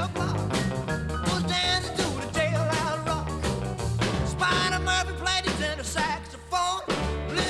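Rock-and-roll music with a singing voice over drums and bass.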